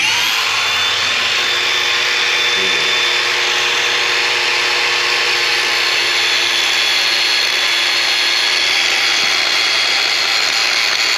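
Electric grinder spinning up with a rising whine, then grinding metal steadily and continuously.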